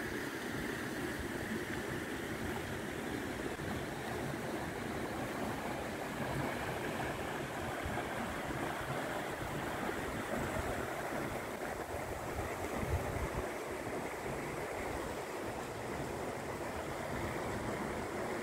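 Shallow river running steadily over limestone ledges and small rapids, an even rush of water, with wind rumbling on the microphone.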